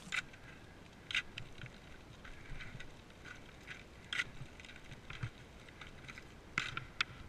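Ice axes being planted into firm snow during a steep snow climb: short, sharp strikes about once a second, irregularly spaced.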